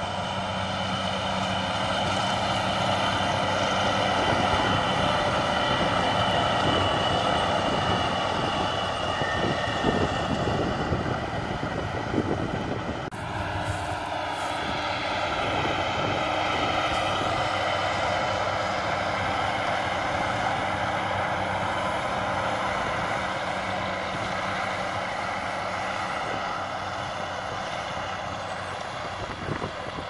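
Manure spreader truck's engine running steadily as it drives across the field spreading chicken manure, with a steady whine on top of the drone. There is a sudden break a little under halfway through, after which the same running sound carries on.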